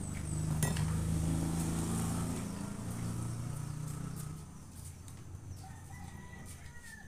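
A low steady drone for about the first four seconds, then a rooster crowing faintly near the end. A few light clicks of a metal spoon scraping the inside of a passion fruit shell.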